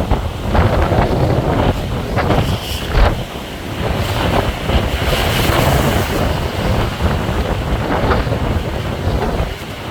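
Strong gusting wind buffeting the microphone in heavy low rumbles, over the wash of rough sea waves.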